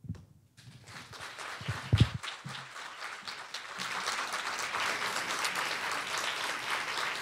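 Audience applauding, the clapping building up over the first few seconds and then holding steady. A brief low sound comes through the microphone about two seconds in.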